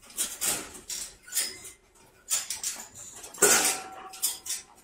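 A young German Shepherd guarding a handbag from a reaching hand, making a run of short, irregular huffing and snapping sounds, with light clinks of the bag's metal hardware.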